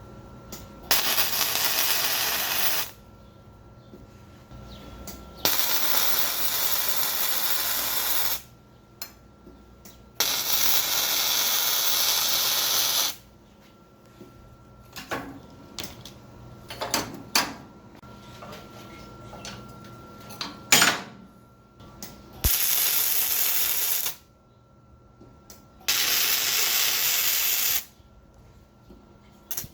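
MIG welder laying short weld beads on steel: five crackling, hissing runs of two to three seconds each. Between the runs, metal clicks and clinks as the work is handled.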